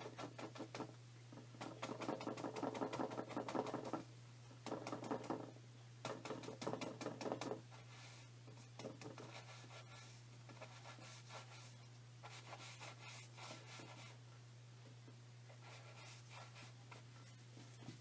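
Paintbrush scrubbing and dabbing paint onto a canvas in scratchy bursts, busiest in the first eight seconds and sparser after, over a steady low hum.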